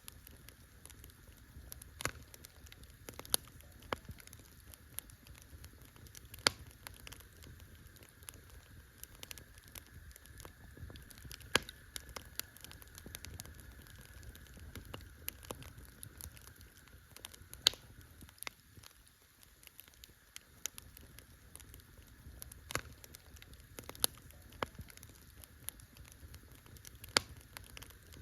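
Wood campfire crackling: a steady scatter of small ticks and pops, with a louder sharp snap every few seconds, over a soft low rumble of the burning fire.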